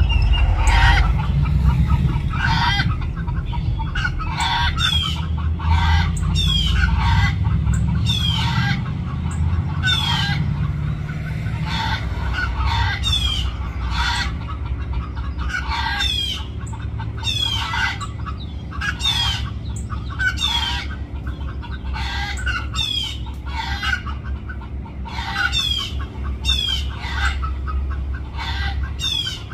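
Feral chickens calling over and over, one loud call about every second, over a low steady rumble.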